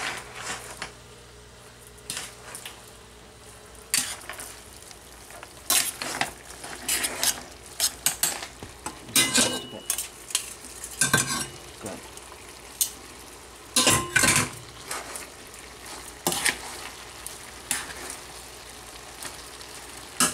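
Linguine and littleneck clams sizzling in a hot skillet while being tossed with metal tongs. The tongs click and scrape against the pan again and again over the steady sizzle.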